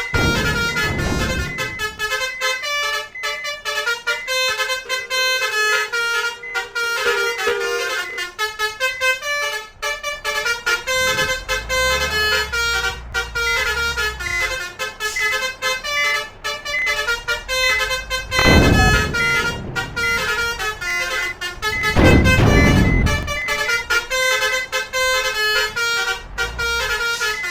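Multi-trumpet basuri 'telolet' air horn playing a fast, repeating melodic tune of short notes. A low engine rumble comes in the middle, and there are two loud low surges of noise about two-thirds of the way through.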